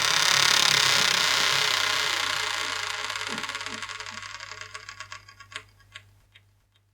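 Door hinge creaking in one long creak, loudest in the first second and slowly fading, slowing into separate clicks near the end before it stops.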